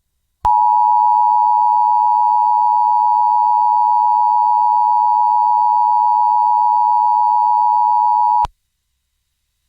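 Emergency alert attention signal: one loud, steady, high tone held about eight seconds that starts and cuts off abruptly. It is the tone that opens an emergency alert broadcast.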